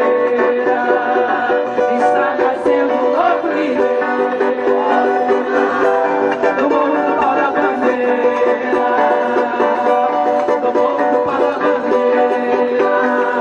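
Live acoustic music in an instrumental passage, played on plucked string instruments such as guitar, steady and continuous.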